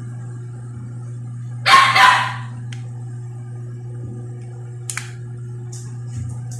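A dog barks twice in quick succession about two seconds in, the loudest sound here, followed by a short click about three seconds later.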